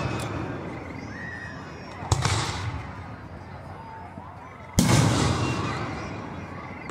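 Aerial fireworks shells bursting: two sharp booms, about two and five seconds in, each trailing off in a rolling echo.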